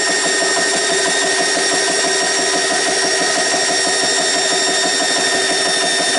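GX CS3 portable high-pressure air compressor running steadily, a fast, even chatter with a steady high whine over it, as it pumps an empty air tank up from low pressure early in the fill.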